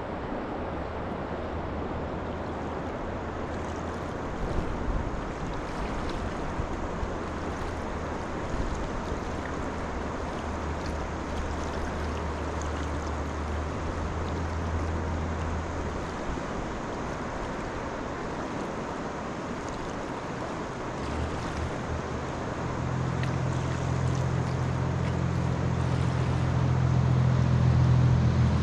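Steady rushing of river water with wind on the microphone. Underneath, a low motor hum stops about halfway through, then comes back and grows louder toward the end.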